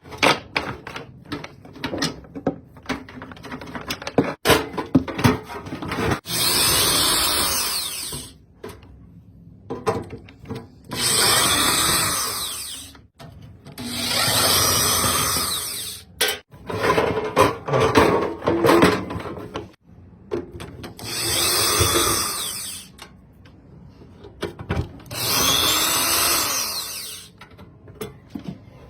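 A power tool, such as a drill, run in five bursts of about two seconds each, with its whine rising and falling as it spins up and down. Clicks and knocks of tool handling come in between.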